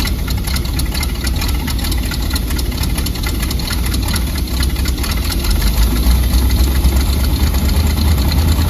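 Chevrolet C60 truck's engine idling with a choppy, lopey beat, the sound the crew take for a performance cam. It gets a little louder about five seconds in.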